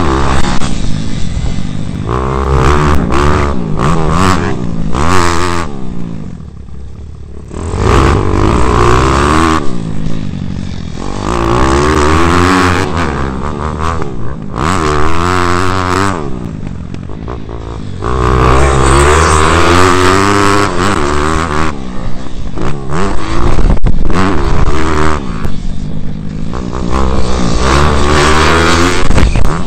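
Bucci pit bike's single-cylinder engine heard onboard while ridden on a dirt track. Its pitch climbs and falls again and again as the throttle is opened and closed through the gears, easing off briefly about six seconds in and again around sixteen seconds.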